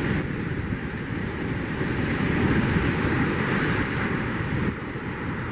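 Ocean surf breaking and washing up the beach, loudest about halfway through, with wind buffeting the microphone.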